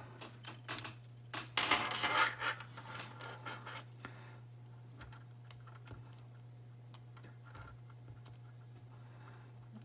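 Small metal clinks and rattles of lock picks and a tension wrench working a Burg Wachter padlock: a single click about half a second in, a busy cluster of clinks a second or two in, then faint scattered ticks. A steady low hum runs underneath.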